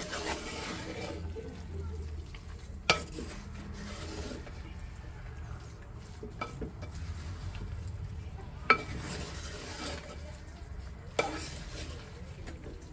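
A wooden spatula stirring raw beef and masala in a clay pot: a wet, steady mixing noise with four sharp knocks of the spatula against the pot, the loudest about 3 and 9 seconds in.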